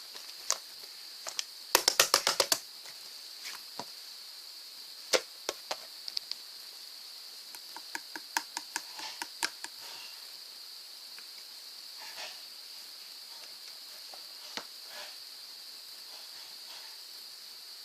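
Slime being pressed and squished by hand, giving sharp little clicks and pops. There is a quick run of about eight around two seconds in, more scattered ones around five and eight to nine seconds, and only a few soft ones after that. A steady high hiss runs underneath.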